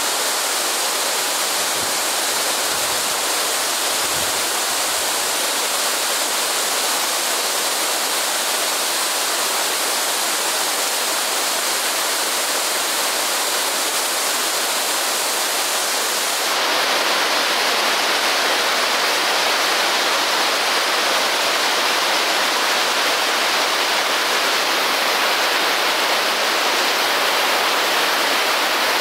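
Rushing water, a loud, steady, even hiss. About sixteen seconds in it changes abruptly, becoming brighter and slightly louder.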